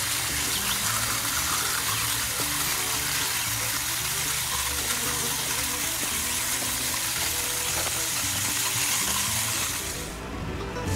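Pumped water spraying out with a lot of pressure from the small orifice holes of a PVC low-pressure-pipe septic distribution line onto crushed rock, a steady hiss. The hiss fades out near the end.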